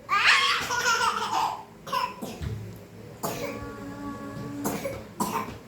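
A small child with a cough and cold coughing and giggling in short bursts, with a held voice sound in the middle.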